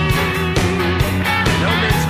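Rock band playing: guitars over bass and drums, with a steady beat of about two drum hits a second.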